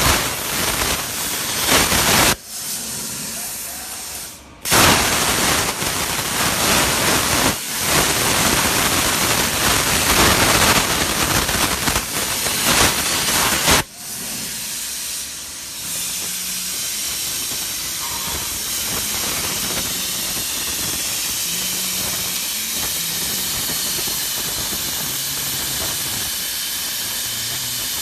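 CNC plasma cutter's torch cutting sheet metal: a loud, even hiss of the plasma arc that dips for about two seconds early on and cuts off suddenly about 14 seconds in. A quieter steady hiss follows, with faint low tones that step in pitch.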